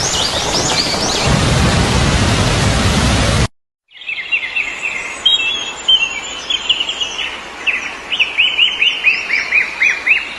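Heavy rain falling with birds chirping over it, cut off suddenly about three and a half seconds in. After a brief silence a songbird sings: repeated runs of quick, falling chirps.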